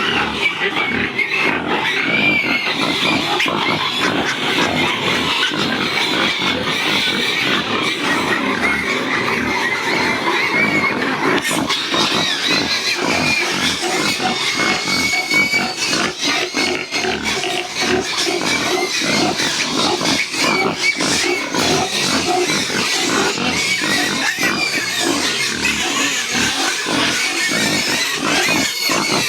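A group of pigs grunting and squealing together, without a break.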